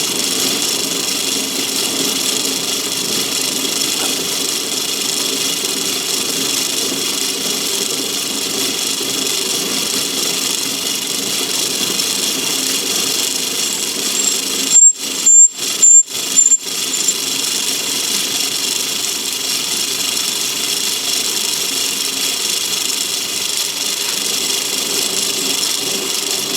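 Myford ML7 lathe running while a parting tool in a rear tool post cuts into a rough cast bar, a steady whirr throughout. A little past halfway, a few seconds of loud, broken stuttering with a thin high squeal.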